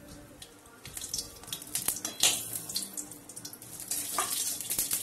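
Mustard seeds and a dry red chilli sizzling and crackling in a little hot oil in a wok as a tempering, picking up about a second in, with a metal spatula stirring and scraping the pan.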